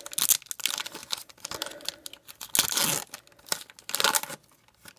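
Foil wrapper of a Pokémon trading-card booster pack crinkling and tearing as it is opened by hand: a run of rustles with louder tears about two and a half and four seconds in.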